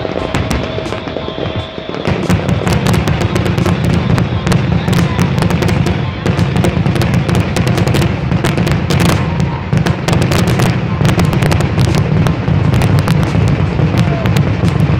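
Fireworks going off: a rapid, continuous crackle of bangs and pops, getting denser and louder about two seconds in, over a steady low rumble.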